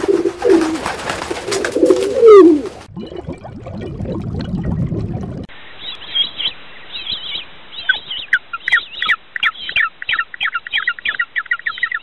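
A flock of pigeons cooing, with wings flapping, for about three seconds. Then comes a low rumble, and in the second half a quick run of short, high calls, several a second.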